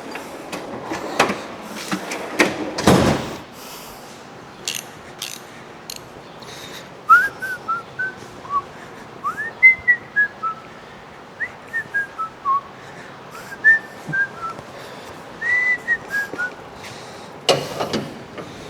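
A person whistling a tune in short gliding notes. A few knocks and clanks from hand-tool work on bolts come at the start and near the end.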